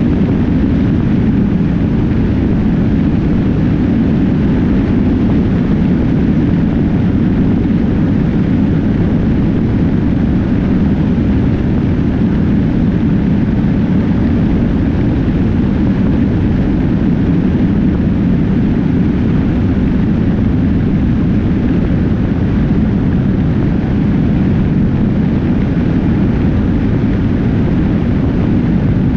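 Steady, loud rush of wind and road noise from a motorcycle travelling at highway speed, with the wind hitting the bike-mounted camera's microphone.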